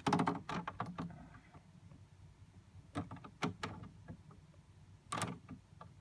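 Handling noise: short clicks and knocks, a quick run of them in the first second, a few more about three seconds in and a louder knock near the end, over a faint low steady hum.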